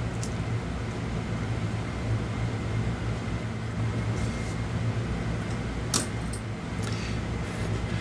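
Steady low hum, with a single light click about six seconds in.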